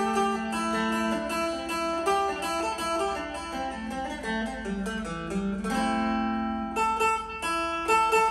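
Phin, the Isan plucked lute, played solo with a quick picked melody over a steady low note. About two-thirds of the way through, a chord is left ringing for about a second before the quick picking resumes.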